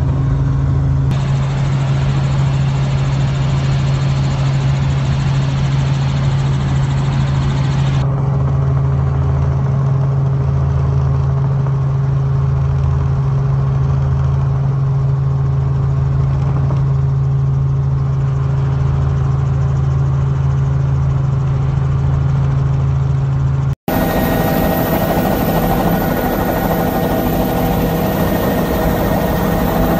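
Helicopter in flight heard from inside the cabin: a loud, steady low drone of rotor and turbine engine. Near the end it drops out for an instant and comes back with several higher steady tones over the drone.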